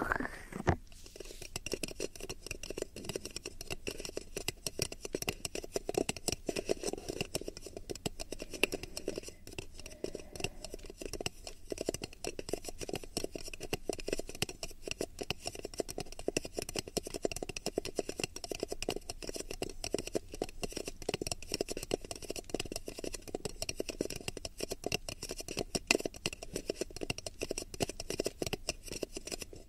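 Fast, dense fingertip tapping and flicking on the ears of a binaural ASMR microphone: a continuous run of small close-up taps and scratchy clicks.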